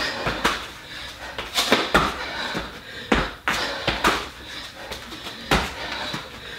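A series of irregular thuds of hands and feet landing on a rubber floor mat as burpees are done, with a push-up and a jump in each one.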